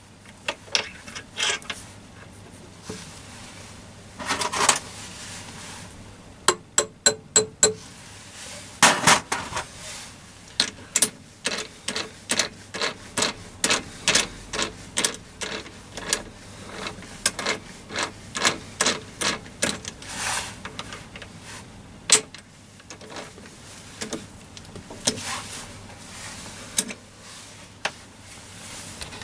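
Three-jaw lathe chuck worked by hand with a T-handle chuck key: a string of sharp metallic clicks and clinks as the key and jaws are turned and steel parts knock together, with a quick run of about six ringing metal taps around seven seconds in.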